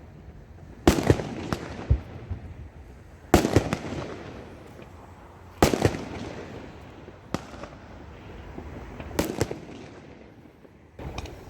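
Fireworks going off: a series of sharp bangs a second or two apart, some in quick pairs, each trailing off slowly.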